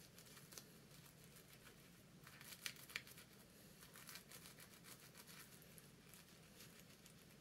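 Faint crinkling and rustling of tissue pattern paper being handled, with a few short, sharper scratches about two and a half to three seconds in as tailor's chalk marks the fabric through pin holes in the paper.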